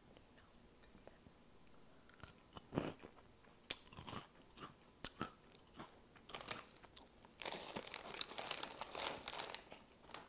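Crunchy Flamin' Hot Cheetos being bitten and chewed close to the microphone. A series of sharp crunches starts about two seconds in, and the crunching becomes dense and louder in the last few seconds.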